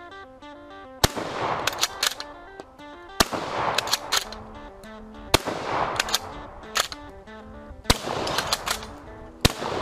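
Bolt-action shotgun fired four times, about two seconds apart, with the bolt clacking open and shut between shots to eject the spent shell and chamber the next. Background music plays under it.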